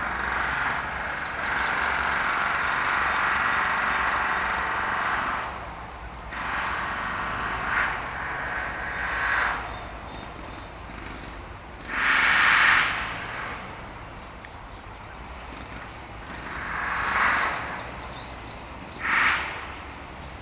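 A cat purring: an uneven, breathy rumble that swells and fades, with a few short louder swells.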